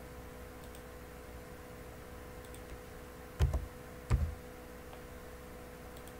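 Two loud clicks of someone working a computer, about 0.7 s apart, with a few faint clicks elsewhere, over a steady electrical hum.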